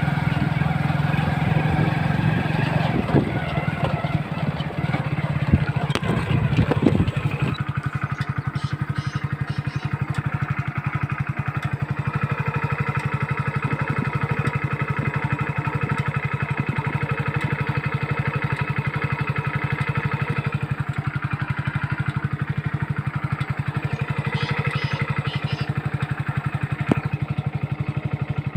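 Hero Splendor motorcycle's single-cylinder four-stroke engine idling steadily, a little louder with a few clicks over the first several seconds.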